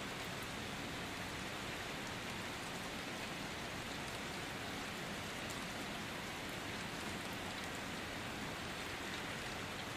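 Steady rain falling, an even hiss with no letup.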